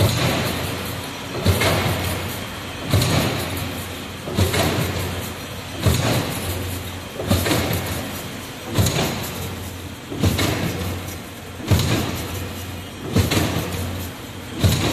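Hexagonal gabion wire mesh weaving machine running, with a sharp knock about every one and a half seconds, each followed by a fading rush of mechanical noise, over a steady low hum.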